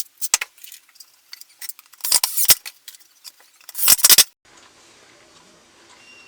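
Irregular clatter of small hard objects being handled, with short scraping bursts about two seconds in and again near four seconds. After that only a faint steady background noise remains.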